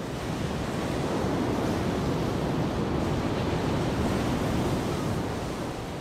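Sea surf breaking against a rocky shore: a steady, rushing wash of waves that swells slightly in the middle and eases off near the end.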